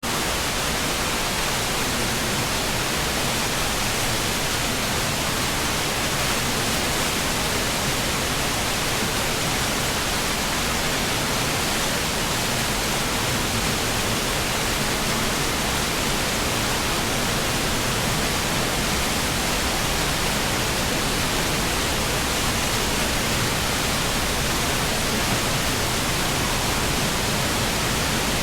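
Boyana River, a mountain stream, rushing steadily over rocks: a loud, even sound of water that does not change.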